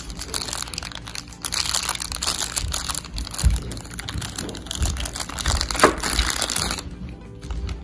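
Small plastic toy bag crinkling and crackling as fingers pull it open. The crinkling dies down near the end.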